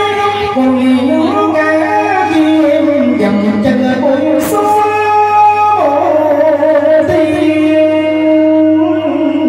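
A singer's voice with live band accompaniment, amplified through a PA: long held notes that slide between pitches.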